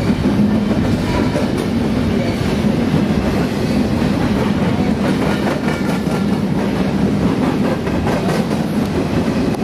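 A freight train of empty intermodal well cars rolling past, its wheels clicking over the rail joints.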